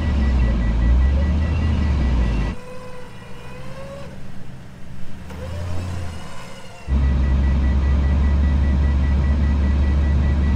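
Steady low rumble of a pickup truck's idling engine heard from inside the cab. For a few seconds in the middle it drops to a quieter outside sound with a faint, slightly rising engine note, then the cab rumble returns.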